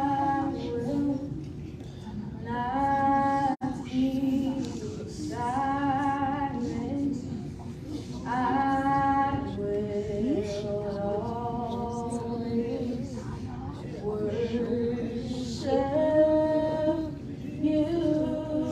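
A woman singing a church song into a microphone, long held notes with vibrato in phrases of a second or two, over a steady hum. The sound drops out briefly about three and a half seconds in.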